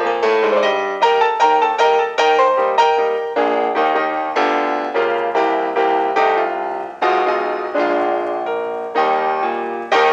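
Solo piano music: a quick run of notes, then slower notes and chords, with a final note struck near the end and left to ring.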